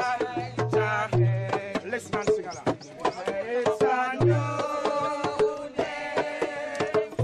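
Music: fast hand-drum strokes with a pitched melodic line over them.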